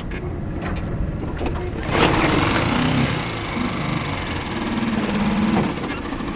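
Boat's outboard motor throttled up sharply about two seconds in, then running at speed with its pitch rising and settling as the boat gets underway.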